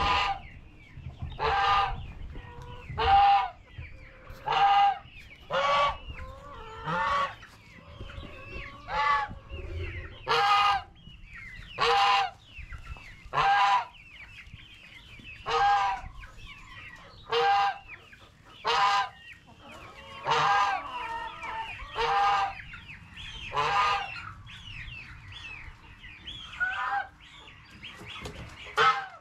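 A goose honking over and over, one short loud call every second or so, with chickens clucking more faintly in the background.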